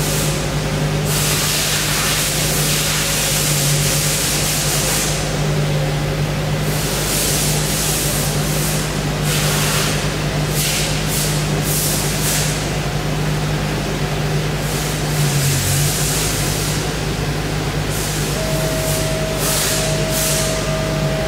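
Fadal VMC 4020 vertical machining center powered up, giving a steady machine hum, with stretches of hiss lasting a few seconds each and a steady higher tone joining near the end.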